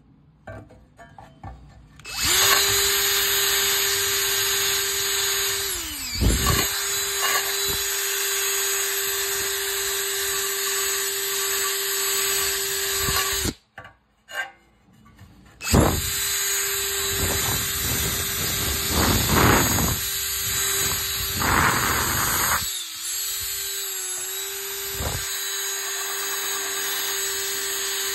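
Cordless drill spinning a wire cup brush against a rusty steel pan, scouring off the rust: a steady motor whine over scratchy wire brushing. It starts about two seconds in after a few light knocks, stops for about two seconds in the middle, then runs again with harder scraping for a while.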